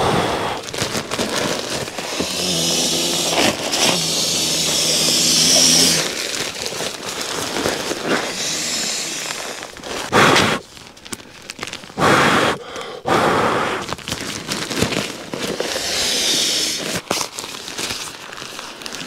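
Crinkly rustling of a Nemo Tensor insulated sleeping mat's nylon and its pump sack being handled and squeezed, in irregular loud bursts. A low steady tone runs under the rustling for a few seconds near the start.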